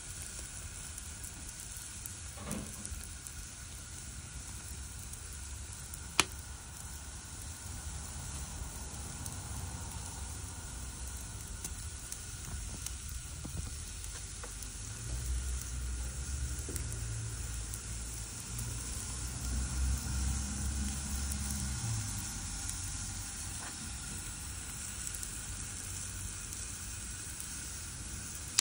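Whole squid sizzling on a hot grill grate, a steady hiss of the flesh cooking. A single sharp click comes about six seconds in, and a low rumble joins the sizzle for several seconds around the middle.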